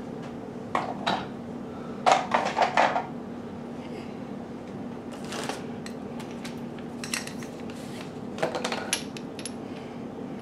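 Metal press parts clinking and clattering as they are handled and pulled from a cardboard box of bagged parts, in several short bursts, the loudest about two seconds in.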